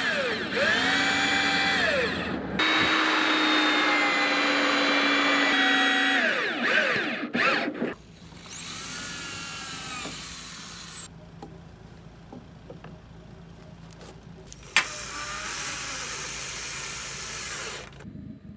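Corded electric drill boring into timber boards. Its motor whine dips and rises in pitch as the trigger is squeezed and eased, in a couple of long runs over the first seven seconds. About nine seconds in, a power tool spins up to a thin high whine that slowly falls away, and a single sharp click comes near fifteen seconds.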